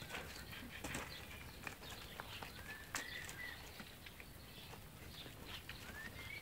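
Pembroke Welsh Corgi puppies whining faintly: a few short, high, rising-and-falling cries, over small crunches of gravel under their paws.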